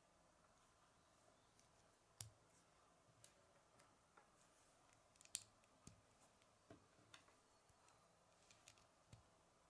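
Faint, sharp clicks of small plastic Lego pieces being handled and pressed onto a model, about a dozen scattered irregularly, the loudest about five seconds in.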